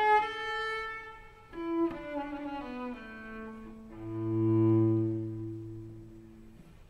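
Background classical music with slow, held notes. A long low note swells about two-thirds of the way through, then fades.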